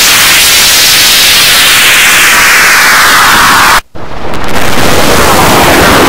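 Image-to-sound synthesis from Photosounder: a loud, dense wall of hiss-like noise painted from a picture, with a band that sweeps down in pitch over nearly four seconds. It cuts out for a moment just before four seconds in, then the noise starts again.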